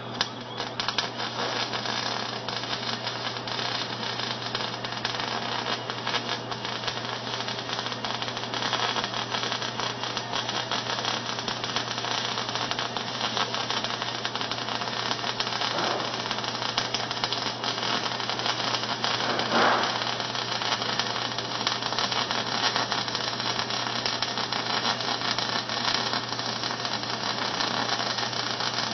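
Electric arc welding: the arc crackling and sizzling continuously with dense fine pops, over a steady low hum.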